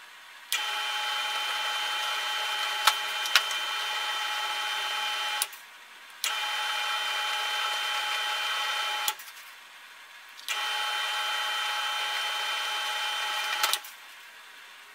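Drill press running in three spells of a few seconds each while drilling holes in wood: a steady whine that starts suddenly each time and dies away between spells. Two sharp clicks come about three seconds in.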